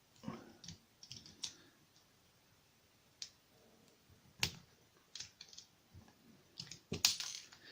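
Scattered small metallic clicks and taps of a padlock core and its parts being handled and worked at with tools, with a sharper click about four and a half seconds in.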